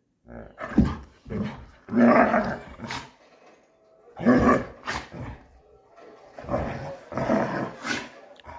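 Doberman play-growling in rough, noisy bursts during a wrestling game, interrupted a few times by short, sharp sneezes of the kind dogs give in play.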